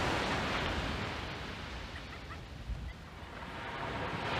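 Sea waves breaking and washing up a sandy beach, the wash loudest at first, easing off, then building again near the end. A few faint short bird calls about two seconds in.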